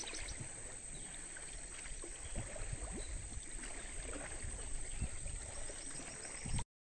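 Swollen river floodwater flowing fast, a steady rushing hiss with a low rumble underneath. The sound cuts off abruptly near the end.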